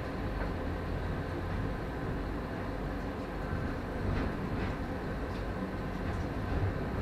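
Interior running noise of a Prague tram moving at low speed: a steady low rumble from the running gear and motors, with a few faint short clicks a little past the middle.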